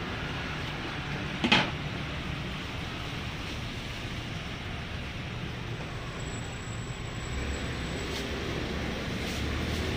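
Steady road-traffic noise with a low rumble that swells near the end, as a vehicle goes by. One sharp knock about a second and a half in, and a few faint ticks later.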